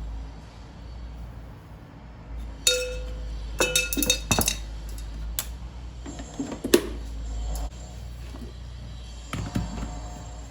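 Glass or ceramic dishes clinking, with a string of sharp knocks and short rings in the middle and a few more near the end, over a steady low hum.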